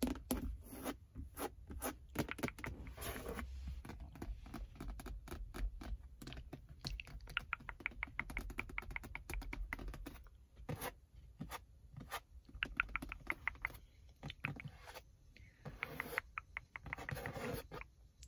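Long fingernails tapping and scratching on the leather interior of a Ford Mustang: first on the centre console armrest, later on the seat's headrest and seat back. Sharp separate taps mix with runs of quick scratching strokes.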